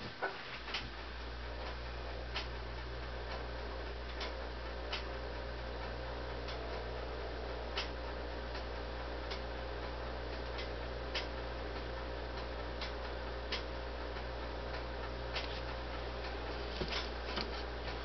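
Downy woodpecker pecking at suet in a wire cage feeder: single sharp taps of its bill at irregular intervals about a second apart, a few coming close together near the end, over a steady low hum.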